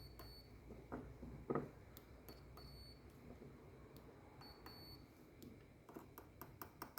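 A digital multimeter on its continuity setting gives three short, faint, high beeps about two seconds apart. Each beep signals continuity through a glow plug's heating element. Light clicks come from the probe tips touching the terminals.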